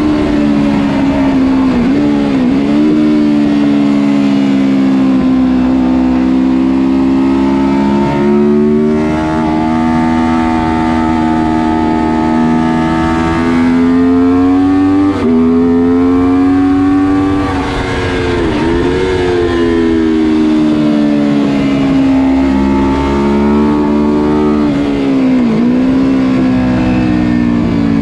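Onboard sound of a Honda VFR750 RC24's 748 cc V4 engine under racing load. Its pitch climbs through the gears and drops sharply at each shift or downshift into the corners, several times over.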